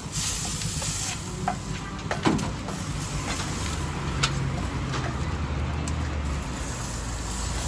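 Low, steady traffic rumble with food sizzling on a hot grill, and a few sharp knocks.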